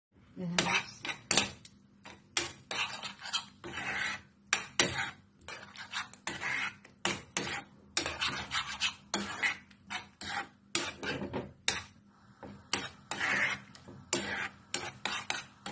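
Metal spoon scraping and clinking against a nonstick frying pan while stirring a soft egg and mushroom mixture, in quick, irregular strokes.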